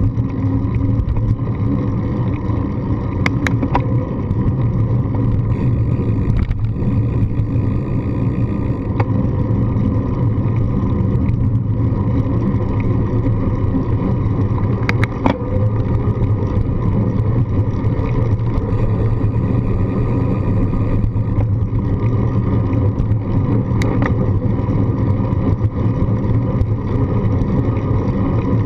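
Steady low rumble of wind and road vibration picked up by a handlebar-mounted GoPro on a moving bicycle, with a few sharp clicks scattered through it.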